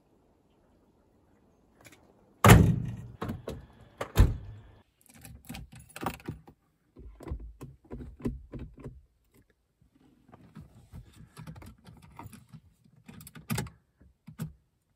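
Two heavy thunks of a 1989 Mercedes-Benz W124's body panels being shut, under two seconds apart, followed by a run of lighter clicks and knocks from handling the gear lever and keys in the cabin. The engine is not running.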